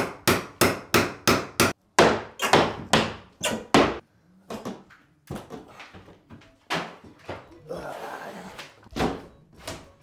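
Hand demolition blows with a hammer and pry bar on tiles and a timber door frame: a quick run of about a dozen sharp strikes, roughly three a second, then scattered knocks and a rough scraping, crumbling rattle near the end.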